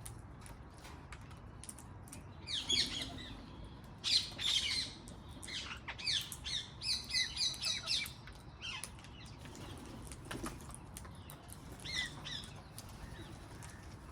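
Wild parrots calling in short bursts of shrill chattering. Around the middle comes a quick run of repeated notes, and a brief call follows near the end.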